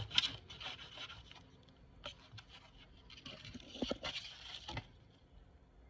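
Knife cutting a lemon in half: short scrapes and light knocks, busiest about three to five seconds in.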